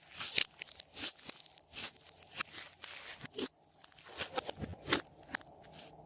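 Glossy slime being worked by hand, with makeup and clay mixed in: a run of irregular sticky clicks, pops and crackles, loudest about half a second in and again near five seconds in.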